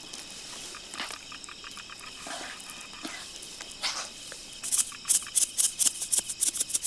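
Steady high chirring of insects, with scattered clicks and then a quick run of wet clicks and squelches, about halfway through, from batter of mashed potato and flour being mixed by hand in a bowl.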